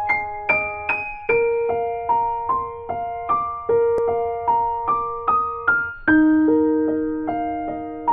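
Background music: a gentle piano-like keyboard melody, single notes struck about two or three times a second and fading, over lower held notes that change every couple of seconds.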